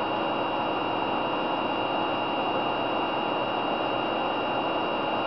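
Steady even hiss with a faint constant high whine, like fan and electronics noise in a small room.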